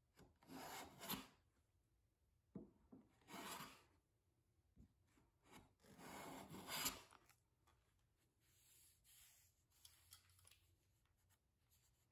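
Hand plane shaving a hardwood banjo neck blank: three long pushing strokes, each a rasping hiss of the blade cutting wood, with a few light knocks between strokes and only faint handling sounds afterwards.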